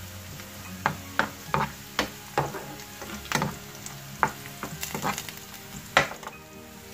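Sliced onions and dried red chillies sizzling in hot oil in a frying pan. A metal spoon stirs them and scrapes and clicks against the pan again and again, loudest about six seconds in. This is the tempering (baghar) being fried until the onions turn golden.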